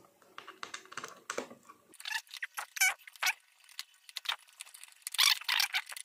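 Small hard parts being handled: a scatter of light clicks and jingling rattles, with a busier, louder flurry about five seconds in.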